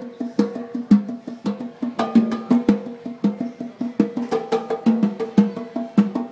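Hands drumming a quick, steady rhythm on a stainless steel double kitchen sink, each slap on the metal basins giving a short pitched ring.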